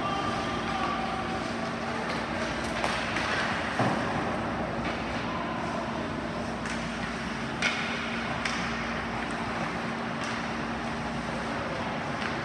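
Ice rink ambience during a hockey game: a steady hum and noise with a constant low drone, broken by two sharp knocks about four and eight seconds in.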